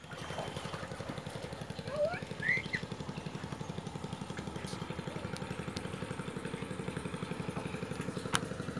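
Small engine running steadily at low speed with an even, rapid putter of about a dozen beats a second.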